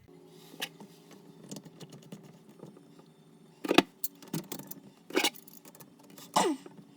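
Small metal plumbing parts being handled and fitted under a bathroom vanity: scattered metallic clinks and knocks, the loudest a little before halfway, one near the end with a brief falling squeak, over a steady low hum.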